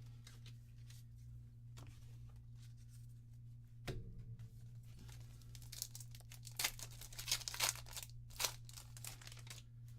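A trading-card booster pack's wrapper being torn open and crinkled: a soft thump about four seconds in, then a run of sharp rips and crackles from about six to nine seconds. A steady low electrical hum runs underneath.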